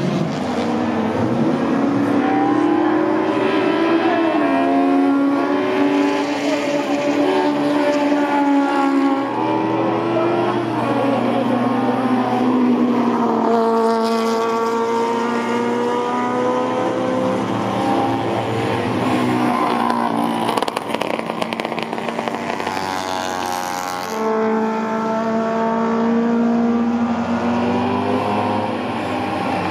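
Small classic race cars running hard on a circuit: high-revving four-cylinder engines climbing in pitch through the gears, then settling, as car after car passes. Among them is the Honda S800's twin-cam four-cylinder, fed by four carburettors.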